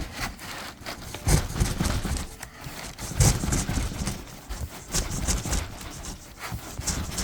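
Irregular knocks, bumps and scraping of a new air compressor being worked around in its tightly packed cardboard box, with the loudest knocks about a second in, about three seconds in and about five seconds in.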